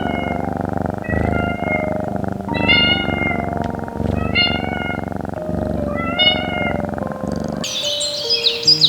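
A cat meowing over and over, short high calls about every second and a half, with background music underneath. Near the end the meowing gives way to birds chirping.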